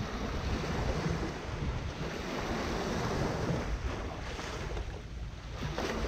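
Small Mediterranean waves breaking and washing up the shore in gentle surges, with wind rumbling on the microphone.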